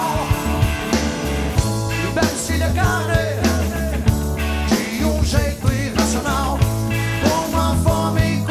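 Live rock band playing: electric guitar, bass and drums with regular beats, under a male lead vocal sung in Portuguese.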